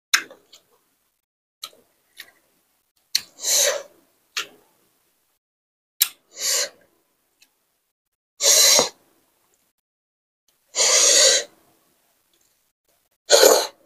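Close-miked eating noises of a person eating a noodle salad and crispy fried pork belly by hand: short sharp mouth clicks and five noisy bursts of about half a second each, spaced a couple of seconds apart, the longest about eleven seconds in.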